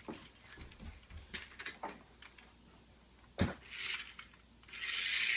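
Light scattered knocks and clicks of a plastic toy remote control car, with a sharper knock about three and a half seconds in. Near the end the car's small electric motor whirs as it drives.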